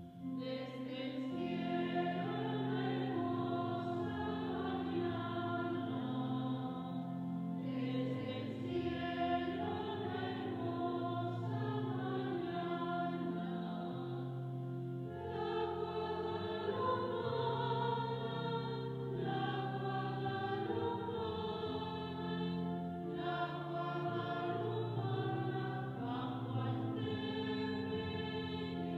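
A choir singing a hymn in long phrases over steady, held accompaniment chords.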